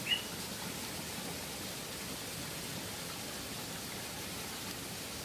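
Steady, even hiss of background noise with no clear source, and one short high chirp right at the start.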